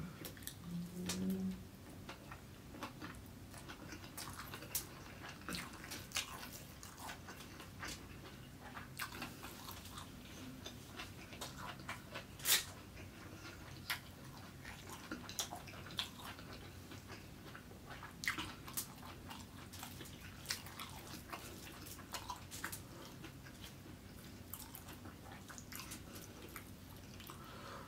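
A person eating fried rice with his hand, close-miked: faint chewing and mouth sounds with many scattered sharp clicks and small crackles, one louder click about twelve seconds in.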